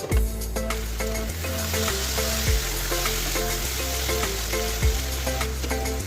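Food frying in a hot pan, a steady sizzling hiss that swells about a second and a half in and eases near the end, over background music with a bass line.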